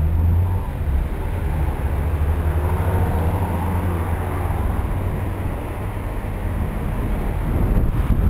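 Low, steady rumble of car traffic, engines and tyres on a wet road, mixed with wind buffeting the microphone of a moving bicycle's camera.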